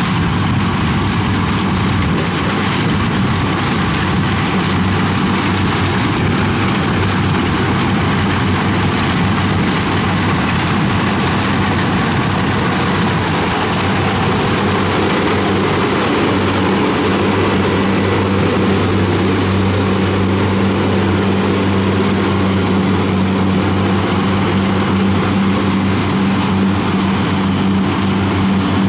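Kubota DC-70 rice combine harvester's diesel engine running steadily under load while it cuts and threshes rice, a steady drone over the churning noise of the machine.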